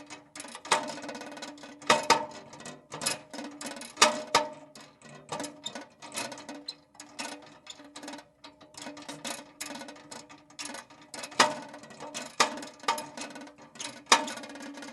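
A metal lantern swinging as it is carried: the handle squeaks and the glass rattles in its frame, with sharp clinks about once a second.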